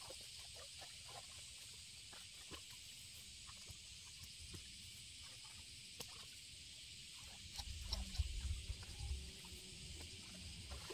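Scattered short rustles and snips of grass being cut by hand, over a steady high insect drone. From about three-quarters of the way in, a low rumble joins.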